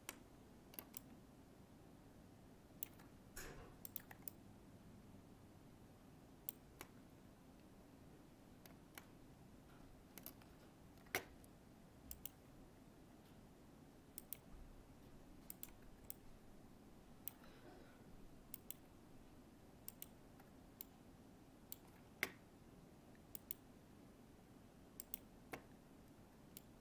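Computer mouse clicking: short, sharp clicks at irregular intervals, a few seconds apart or in quick pairs, over a faint steady hum in near silence.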